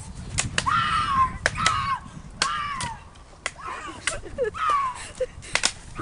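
Sticks and tree branches being whacked and snapped: a string of sharp cracks, about a dozen, with short falling yells between them.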